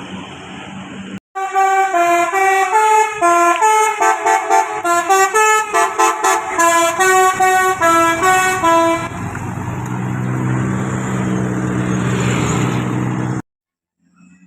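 Bus 'telolet basuri' melody air horn playing a fast tune of stepped notes for about seven seconds. The bus's engine then runs on, rising slightly, until the sound cuts off abruptly near the end.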